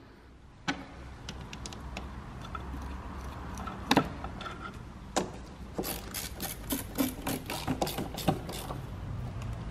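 Hand tools and fittings in a car's engine bay: a sharp plastic click about four seconds in as a clip is pressed into place, then a quick run of ratchet clicks, about four to five a second, as a nut is tightened with a socket tool.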